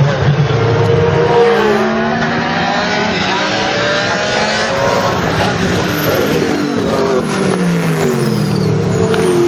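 Pagani Zonda C12 GR racing car's Mercedes-AMG V12 engine running loud. Its pitch climbs over the first half as it accelerates, then falls away in the second half.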